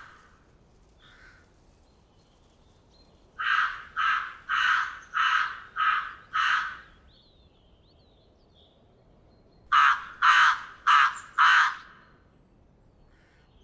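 Crow cawing: a faint caw about a second in, then a run of six caws, a pause, and a run of four more caws, with faint distant caws near the end.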